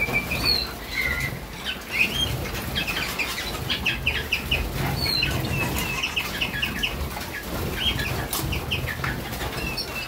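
Harzer Roller canaries bathing: wings fluttering and splashing, with many short chirps throughout.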